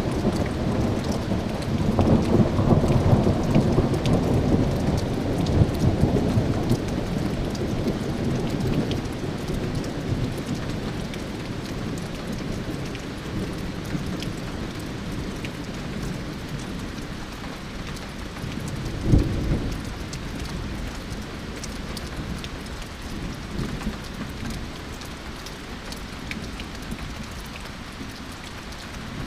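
Thunder rolling in a long low rumble that swells in the first few seconds and slowly fades away, with steady rain pattering and dripping throughout. About nineteen seconds in there is one short, loud, low thump.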